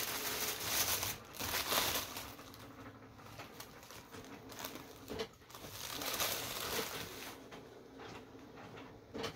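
Crinkly paper wrapping being crumpled and pulled open by hand, loud rustling for the first two seconds, then softer, intermittent crinkles.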